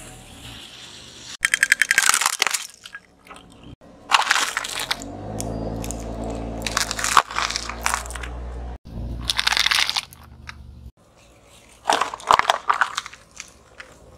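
A car tyre crushing small objects, among them plastic snack pots, in several separate bursts of crunching and cracking. One burst is a quick run of cracks, about a second and a half in. A low steady engine hum runs between bursts in the middle.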